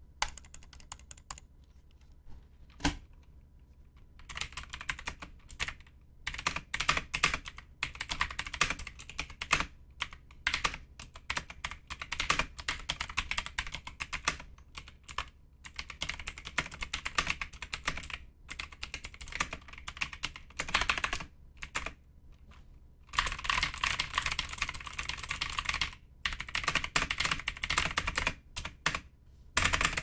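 Fast typing on a budget RGB mechanical keyboard: a few lone key clicks, then from about four seconds in a rapid run of key clacks with short pauses, densest near the end.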